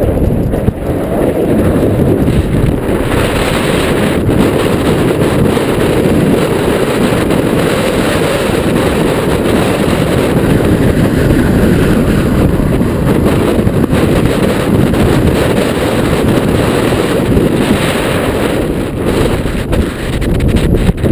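Strong wind buffeting the microphone as a mountain bike rides fast down the trail, a dense, steady low rumble with tyre and trail clatter underneath.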